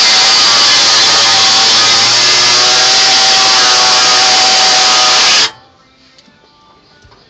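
Air-powered grinder running at full speed as it trims a bracket, a loud steady hiss with a faint whine, shutting off abruptly a little over five seconds in.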